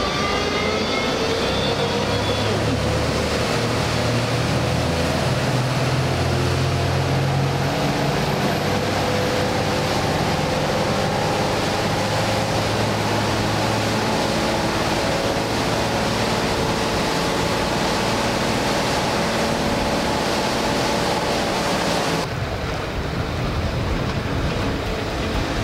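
Twin Volvo Penta IPS 900 diesel engines of a 56-foot express yacht rising in pitch as the throttles go forward, then running steadily at planing speed under the rush of the wake and wind. About 22 seconds in the sound changes abruptly, and the high hiss drops away.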